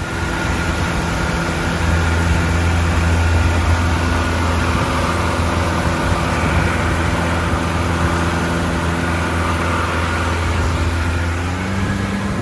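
A loud, steady machine drone like an engine running, with a strong low hum and hiss. One of its tones shifts slightly near the end.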